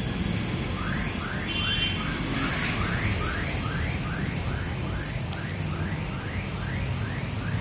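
An electronic alarm sounding a repeated rising chirp, about two and a half chirps a second, over a steady low hum.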